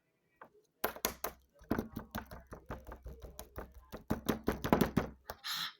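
Slime being squished and worked by hand close to the microphone: a quick, uneven run of sticky clicks and pops, ending in a short hissing burst.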